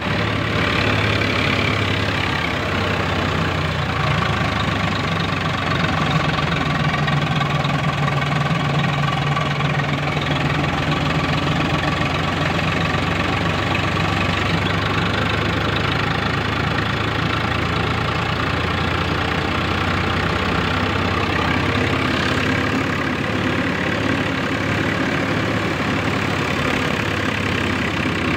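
Swaraj tractor's diesel engine running steadily under load, together with the continuous mechanical clatter of a tractor-drawn straw reaper working through wheat stubble.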